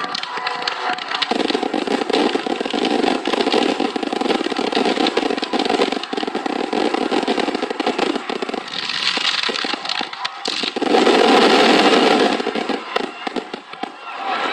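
Fireworks crackling densely and without a break, as many small bursts run together, swelling loudest about three quarters of the way through.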